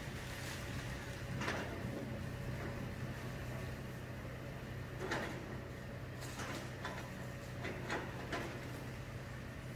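New Holland hydraulic excavator's diesel engine running steadily while broken concrete and rubble clunk and scrape in a handful of short knocks, the sharpest about five seconds in.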